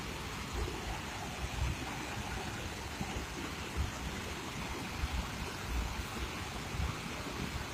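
Steady rush of water during a flood, with irregular low rumbles underneath.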